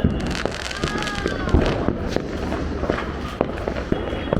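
Firecrackers going off: a dense, irregular run of sharp pops and cracks, with one louder crack about a second and a half in.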